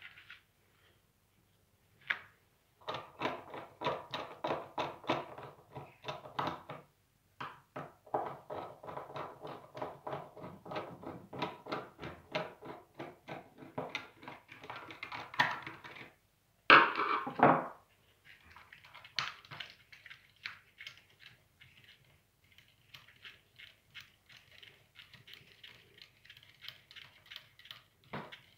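Screwdriver working out the screws of the bearing bracket on a cooker-hood fan motor: two long runs of rapid clicking strokes, a loud clatter about 17 seconds in, then lighter scraping and ticking as the bracket is handled.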